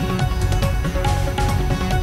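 Background music with a steady beat and sustained electronic tones.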